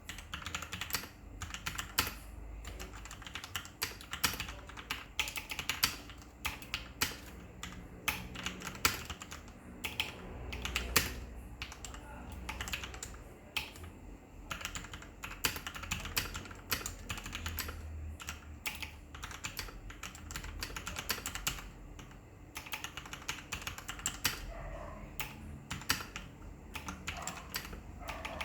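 Typing on a Rakk Lam-Ang Lite mechanical keyboard with Outemu red linear switches lubed with Krytox 206g2 and PBT double-shot keycaps: a continuous stream of keystroke clacks, with harder, louder strikes every second or two.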